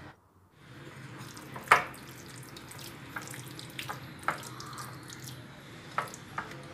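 A hand squishing chicken pieces through a wet yogurt marinade in a ceramic bowl, with a few sharp clicks of the hand knocking against the bowl, the loudest about two seconds in.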